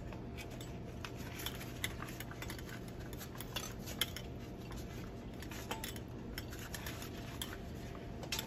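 Nylon webbing being worked through the shoulder pad of a scuba harness, with scattered light clicks and metallic taps as the harness hardware touches the metal backplate. The sounds are faint, over a steady low hum.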